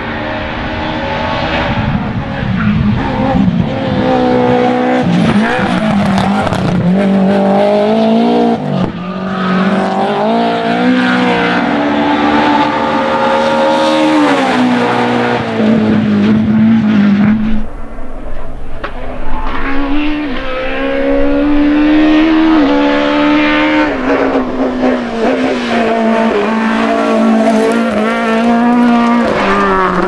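Rear-wheel-drive rally cars at full throttle, engines revving hard, the pitch climbing and dropping again and again through gear changes and lifts. A different car takes over partway through.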